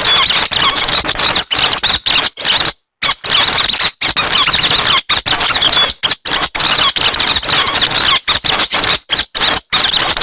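Recorded calls of the bird known in Vietnam as 'hec xoan', played as a lure for bird trapping: rapid, high, squeaky chattering, densely packed, broken by short gaps every half second to a second.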